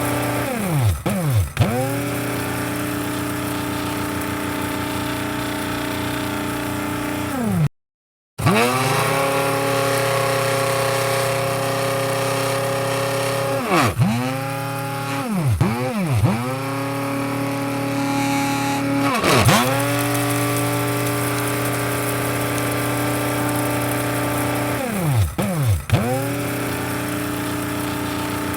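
Electric coffee grinder motor running with a steady, humming whine. Four times its pitch plunges and then climbs back up to speed, and about eight seconds in the sound cuts out completely for a moment.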